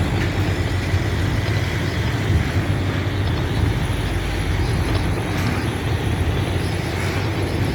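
Slow CSX freight train of autoracks and stack cars rolling past at close range: a loud, steady rumble, which the listener calls very loud.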